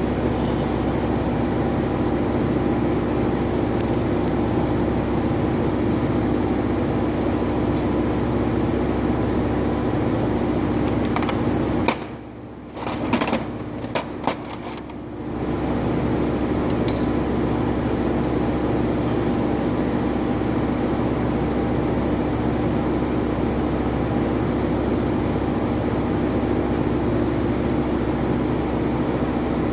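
Steady mechanical hum with a few held tones. It drops away for about three seconds near the middle, where a few clicks are heard, then comes back.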